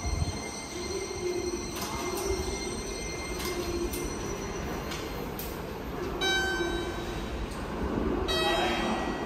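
Toei Asakusa Line subway train at the station platform, running steadily, with a pitched tone sounding for about a second and a half some six seconds in.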